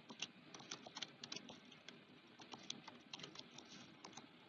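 Computer keyboard typing: a quick, irregular run of faint key clicks that stops near the end.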